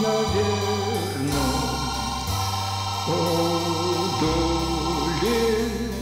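Slow background music: a melody of long held notes that waver slightly, over low sustained notes that change every second or so.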